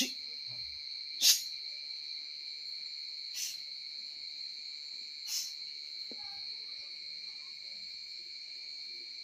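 Crickets trilling steadily at a high, even pitch, with four short knocks spread over the first five or so seconds, the second the loudest.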